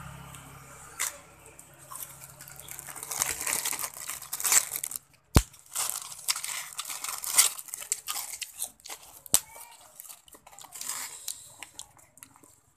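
Plastic bag crinkling and rustling while crisp kerupuk crackers are taken out and handled, with crackers crunching. It comes as an irregular run of rustles and crackles with a few sharp snaps.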